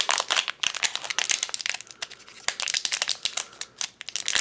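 Plastic packaging crinkling and crackling in the hands as a small blind-bag item is opened, in a dense run of irregular crackles that thins out briefly midway.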